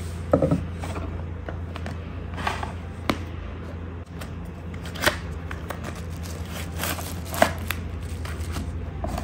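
A small cardboard box and plastic wrapping handled and opened by hand: scattered taps, scrapes and crinkles over a steady low hum.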